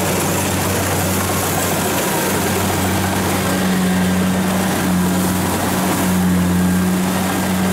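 Kubota DC-70 combine harvester's diesel engine running steadily under load as the machine cuts and threshes rice: a constant low drone over a broad mechanical whir.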